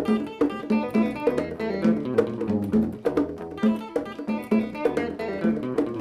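Instrumental intro of a live band: electric guitars playing a repeated plucked figure over hand-drum percussion.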